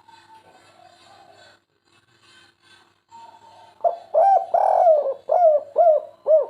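Spotted dove (tekukur/derkuku) cooing: one full phrase about four seconds in, with a long middle note. The phrase ends in three short, clipped 'kuk' notes, the three-note ending known as 'kuk 3'.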